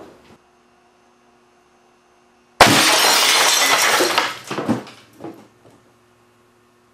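A 25-inch RCA CRT picture tube imploding when an air cannon's water-filled glass bottle hits it: a sudden, very loud crash of shattering glass about two and a half seconds in that stays loud for about a second and a half, then dies away with a few scattered crashes and clinks of falling glass.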